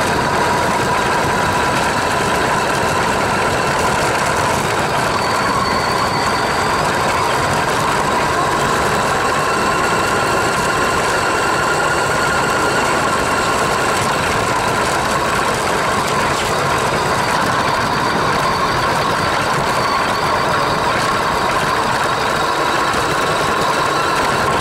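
Electric motor and gears of an RC car whining steadily, picked up close by the car's onboard camera, with constant running noise underneath.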